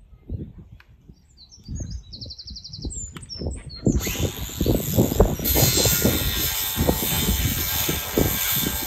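Wind buffeting the microphone, with a few bird chirps in the first few seconds, then about four seconds in a cordless power tool starts up on a metal pole bracket and runs steadily to the end.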